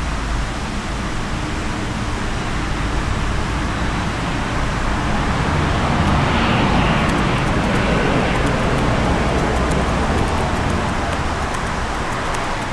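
Steady outdoor ambient noise: a constant rush with a low rumble beneath it, starting to fade away at the very end.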